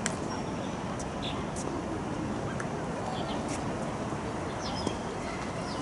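Outdoor tennis-court ambience: a steady background hum with a few faint sharp clicks and a couple of short high chirps.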